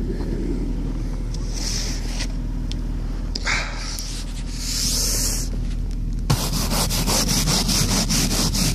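Plastic-bristled snow brush sweeping snow off a car windshield: a few separate swishes, then quick, closely spaced brushing strokes from about six seconds in, over a steady low hum.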